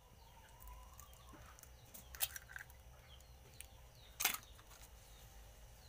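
A hen's egg being cracked over a metal mixing bowl: a short crack about two seconds in and a louder click a couple of seconds later. Faint bird chirps can be heard in the background.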